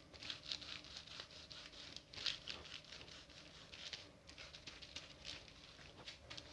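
Marker being wiped off a plastic sheet pinned to a wall: faint, irregular rubbing strokes.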